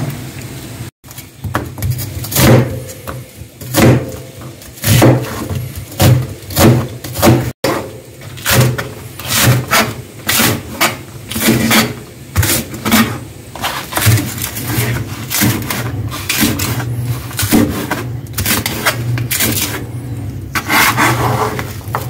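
Kitchen knife cutting green onions on a plastic cutting board: a string of irregular knocks, about one or two a second, over a steady low hum.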